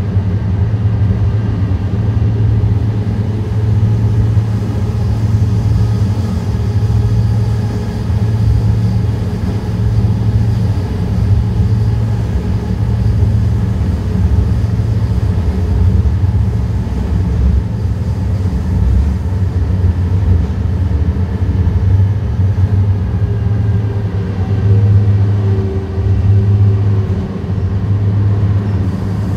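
Onboard ride noise of an Alstom Citadis light rail train running at speed: a steady rumble of wheels on rails with a constant low hum and faint steady whine, swelling slightly now and then.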